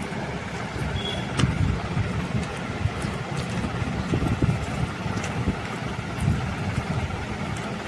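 Low, uneven rumble of wind buffeting the phone's microphone, with a few faint light clicks over it.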